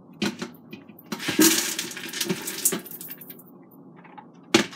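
Soaked Great Northern beans poured from a plastic colander into the empty stainless steel inner pot of an Instant Pot, rattling and clattering against the metal for under two seconds from about a second in. There is a sharp knock just after the start and two more near the end.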